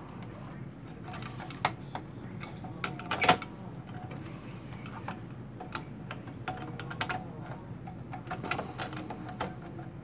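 Scattered clicks and knocks of a Ross HyperSPARC MBus CPU module being handled and fitted into its slot in a SPARCstation 20 chassis, plastic and metal parts tapping together. The loudest cluster of clicks comes a little over three seconds in.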